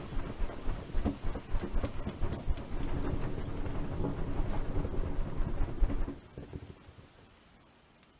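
Wood fire built as a lean-to lay, crackling and popping over a heavy low rumble; the sound drops away about six seconds in.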